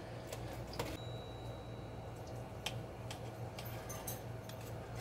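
Knife and fork clicking and scraping against a skillet while cutting up pot roast: a few light, scattered clicks, over a steady low hum.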